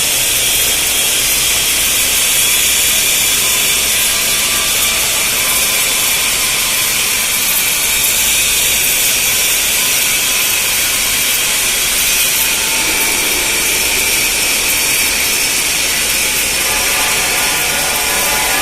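Steady hissing, rasping noise from an automatic pipe welding machine at work, submerged-arc welding a cap pass on P91 pipe, holding even with no breaks.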